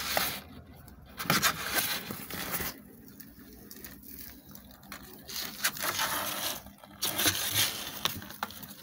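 Cardboard and paper rustling and scraping in several bursts of a second or so, as kittens move about in a cardboard box lined with a paper bag.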